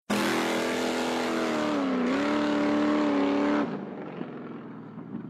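Four-wheel-drive vehicle driving on a dirt road, its engine running under load over a steady rushing road noise; the engine pitch dips about two seconds in, then rises a little and holds steady. The sound cuts off abruptly a little after three and a half seconds in, leaving a much quieter background.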